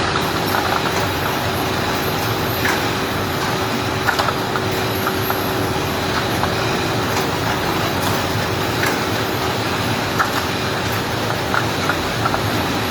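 Automatic shrink wrapping machine running: a steady mechanical noise with a constant hum, broken by irregular small clicks and knocks.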